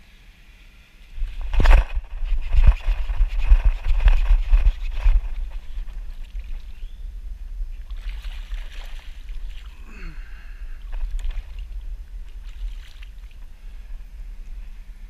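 Water sloshing and splashing around a fishing kayak, with knocks on the hull and gear, loudest and busiest for a few seconds after about a second in, over a steady low rumble.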